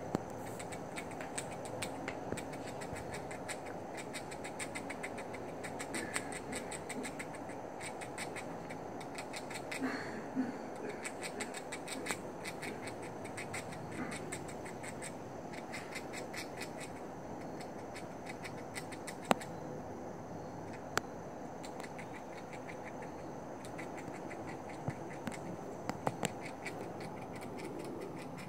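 Gray squirrel gnawing on food held in its paws: bouts of rapid, fine scraping ticks, over a steady low background hum, with a few sharper clicks in the second half.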